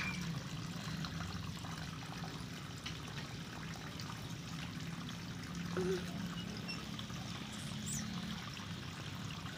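Water trickling and pouring steadily into a koi pond, with a low steady hum underneath.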